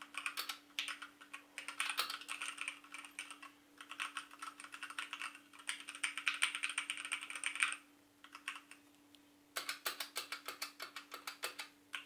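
Typing on an E-Yooso Z686 65% mechanical keyboard with red linear switches: fast runs of key clacks with a short pause about two-thirds of the way through. A faint steady hum sits underneath.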